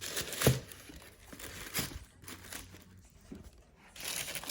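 Paper or plastic packaging crinkling and rustling as boxed items are handled, with a sharp knock about half a second in and a softer one just before two seconds. It goes quieter in the middle, and the rustling picks up again near the end.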